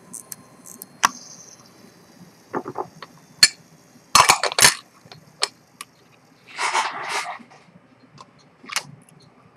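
Scattered small metallic clicks and taps from handling a watch movement and watchmaker's tools on the bench, with a quick run of clicks about four seconds in and a short breathy noise about seven seconds in.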